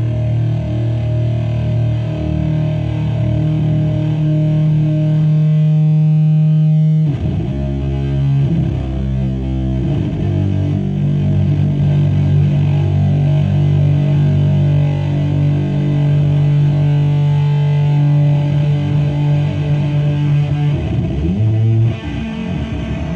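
Electric guitar played through the Zlatorog fuzz pedal: heavily distorted low chords held and left to drone. The chord changes about seven seconds in, settles into another long drone, and shifts again near the end.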